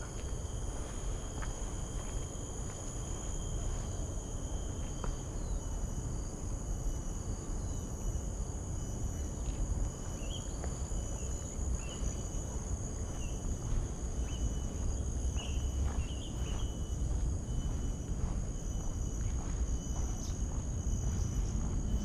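Steady, high-pitched chorus of insects, several unbroken buzzing tones at once. A few short chirps join from about ten seconds in, over a constant low rumble.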